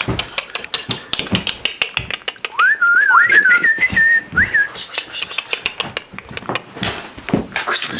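Weird noises: a dense run of rapid clicks and taps, with a warbling, wavering whistle for about two seconds from about two and a half seconds in.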